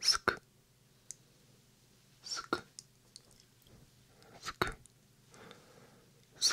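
Whispered 'sk-sk' ASMR mouth sounds made right up against a 3Dio binaural microphone: a short hissing 's' snapping into a 'k' click, in quick pairs about every two seconds, four pairs in all.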